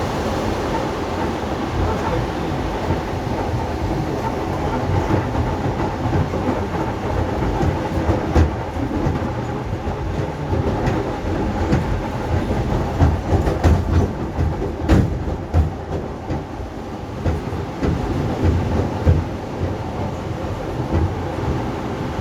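ED4M electric multiple unit running on the track: a steady rumble with a hum, broken by sharp clicks of the wheels over rail joints, with the heaviest thumps about two-thirds of the way through.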